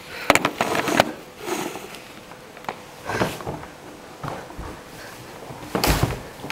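Knocks and rustling handling noise as a camera is set down on wooden floorboards, followed near the end by one loud bare footstep on the floor right beside it.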